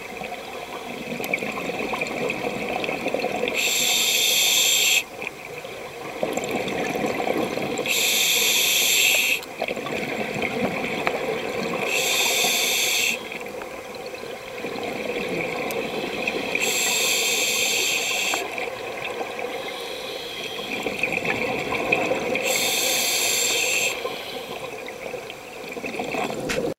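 Scuba diver breathing through a regulator, recorded underwater: a hissing inhale about every four to five seconds, with bubbling exhales between them.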